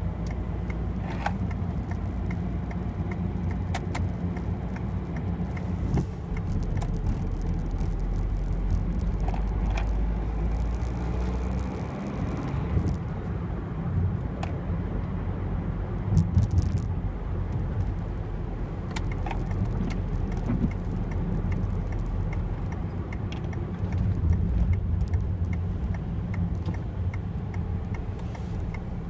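Peugeot 206's 1.4 HDi 8-valve common-rail turbodiesel running under way, heard from inside the cabin as a steady low rumble mixed with road noise, with scattered light clicks.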